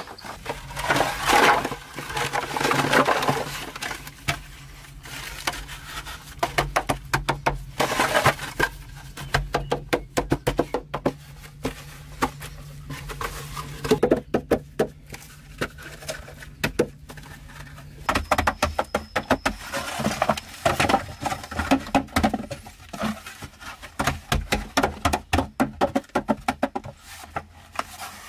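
Green bamboo poles knocking and clattering against one another as they are handled and laid side by side, a long run of sharp wooden knocks with some scraping in between, in a small earthen room.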